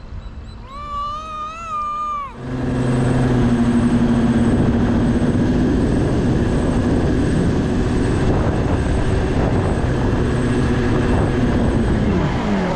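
RC boat's motor running hard with water rushing past the hull, heard from a camera on board; it starts about two and a half seconds in and winds down near the end, falling in pitch. Before it, a short high warbling tone.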